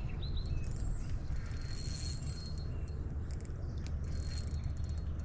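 Fishing reel being cranked to bring in a hooked shad, giving clusters of quick mechanical clicks, over a low steady rumble.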